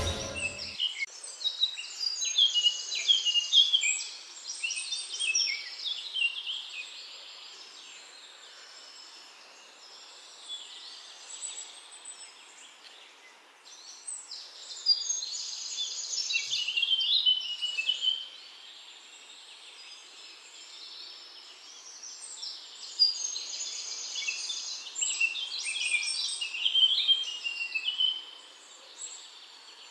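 A songbird singing in three bouts of quick, varied chirping notes, each lasting a few seconds, with quieter stretches between them, over a faint steady outdoor hiss.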